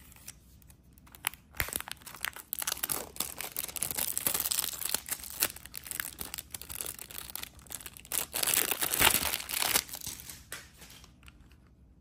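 Cellophane shrink-wrap being torn and peeled off a plastic CD jewel case, with a dense crinkling and crackling of thin film that is loudest about three-quarters of the way through.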